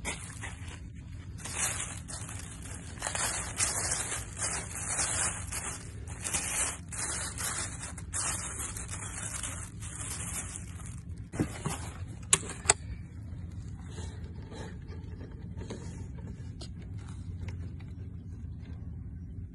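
A thin plastic bag rustling and crinkling as it is handled, in irregular bursts for the first dozen seconds, with two sharp clicks about twelve seconds in. A steady low rumble runs underneath.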